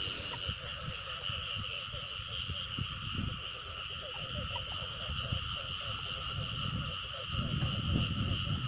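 Steady night chorus of calling paddy-field frogs, with close low rustling as a caught frog is handled; the rustling grows louder near the end as the frog is pushed into a net-covered bucket.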